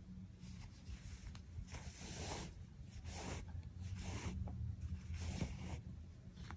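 Yarn being drawn through crocheted acrylic-looking knit fabric and handled, giving several soft, rasping strokes.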